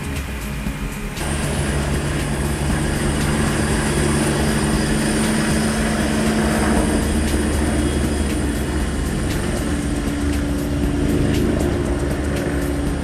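Air ambulance helicopter lifting off: steady turbine whine and rotor noise, growing louder about a second in and staying loud as it climbs.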